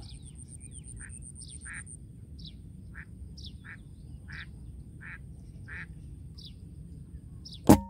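Birds calling in the background, a short call repeated about every half second over a low rumble. Near the end comes a single sharp shot from a PCP air rifle.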